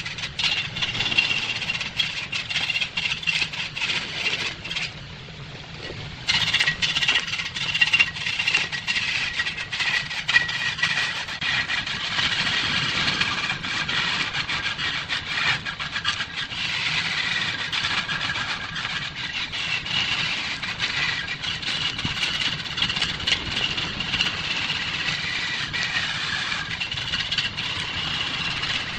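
Turning tool cutting into a large wooden blank spinning on a wood lathe: a continuous rasping cut with a high whine and many small clicks from the chips. It drops off briefly about five seconds in, then resumes.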